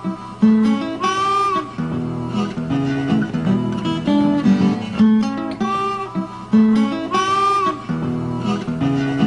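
Background music: an acoustic guitar picking a repeating phrase, some of its notes sliding up in pitch.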